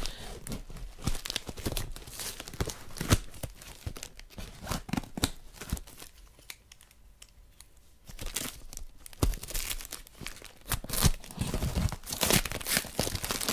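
Packing tape being cut with scissors and torn off a cardboard box, with crinkling and rustling of tape and cardboard in short scratchy strokes. It goes quiet for a couple of seconds about halfway through, then the tearing and crinkling pick up again, louder.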